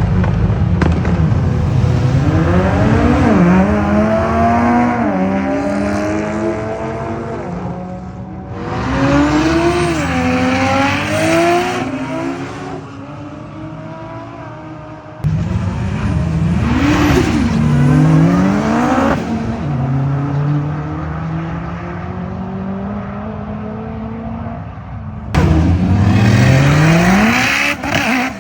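High-performance car engines accelerating hard, their pitch climbing and dropping back with each gear change. The sound jumps abruptly between several separate passes.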